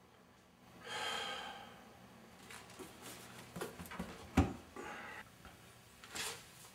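A man's breathy sigh, then handling noises as he bends down: a few light knocks and one dull thump, and another breathy exhale near the end.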